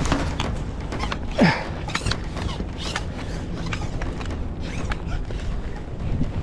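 Handling noise from gear being moved: a run of creaks and small clicks, with one loud squeak that slides down in pitch about a second and a half in.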